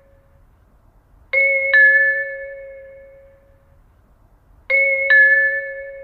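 Eiraku-type station PA two-tone train-approach chime, struck twice: each time a higher note then a lower note about half a second later, both ringing out and fading over about two seconds.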